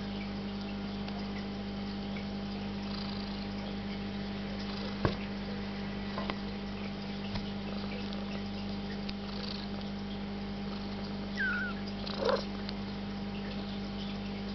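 Domestic cat purring steadily in a box of young kittens, with a sharp tap about a third of the way in and two short high kitten mews about three quarters of the way through, the first falling in pitch.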